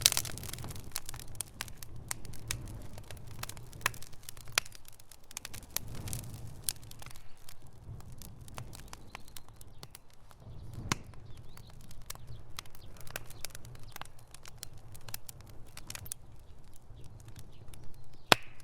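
Wood fire crackling, with irregular sharp pops and snaps over a low steady rumble of flames.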